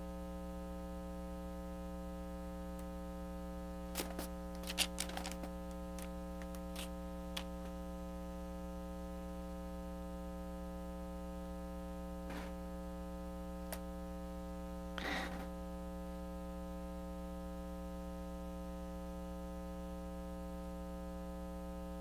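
Steady electrical mains hum, with a few faint clicks and a brief soft rustle partway through.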